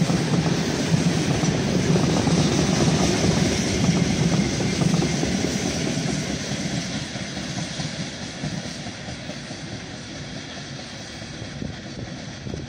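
Coal-loaded gondola wagons of a freight train rolling past, their wheels running on the rails. The noise fades from about halfway through as the last wagon goes by and the train draws away.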